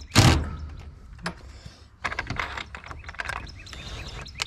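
Irregular clicking and clattering of small metal door hardware being handled and screwed onto a wooden coop door. A loud scraping knock comes just after the start, and a burst of rapid clicks about two seconds in.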